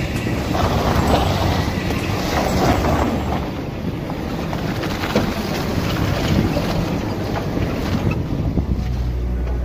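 Toyota Land Cruiser's 4.7-litre V8 running at low speed as the SUV crawls through snow, tyres rolling and crunching over the snow, with wind buffeting the microphone.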